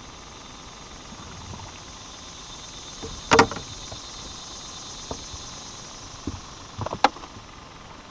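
Handling noises as a small bass is unhooked by hand: one sharp knock about three and a half seconds in and a few shorter clicks and knocks near the end, over a steady faint hiss.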